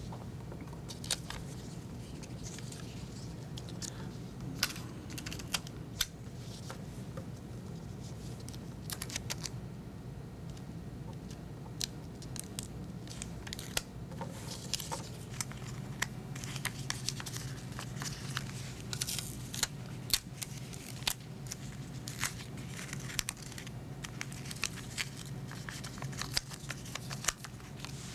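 Hands handling paper hexagons and a pentagon and fixing them with Scotch tape: scattered crinkles, rustles and short tearing sounds of paper and tape, over a steady low hum.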